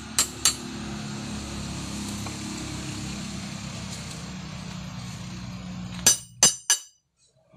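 Hand hammer striking a red-hot bolo blade on a steel anvil: two ringing blows just after the start, then a steady low hum for about five seconds, then three quick ringing blows about six seconds in, after which the sound cuts out briefly.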